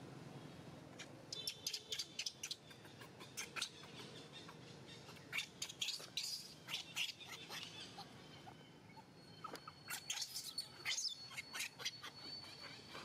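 Newborn monkey crying: short, high-pitched squeaks and chirps coming in three bursts.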